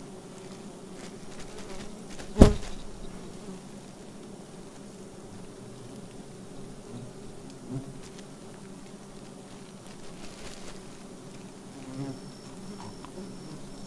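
Swarm of giant honey bees (Apis dorsata) buzzing around their opened comb, a steady hum, with one sharp loud knock about two and a half seconds in and a couple of softer knocks later.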